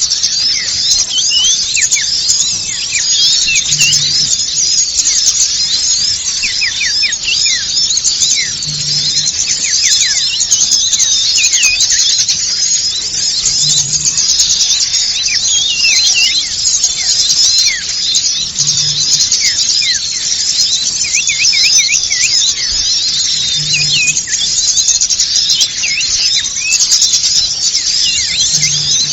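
Dense chorus of many small songbirds chattering nonstop with quick, high-pitched calls and down-slurred notes, a bird-lure (pikat) recording meant to draw small birds in. A faint low pulse repeats about every five seconds underneath.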